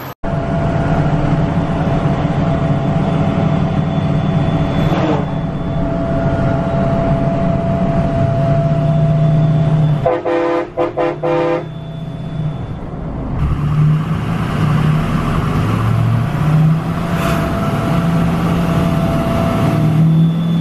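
Ford 6.0 Powerstroke diesel of a straight-piped F-250 running steadily under way, heard from inside the cab. About halfway through, a quick run of short horn toots.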